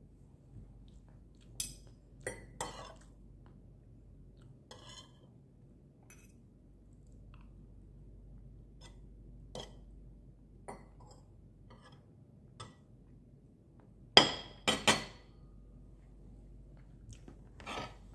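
Metal spoon and fork clinking and scraping against a plate in scattered short clicks. The loudest are two sharp clinks close together about fourteen seconds in.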